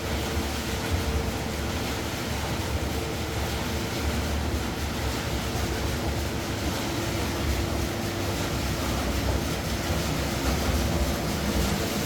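Maxis industrial quilt and blanket washing-and-squeezing machine running: a steady mechanical rumble with a low, even hum.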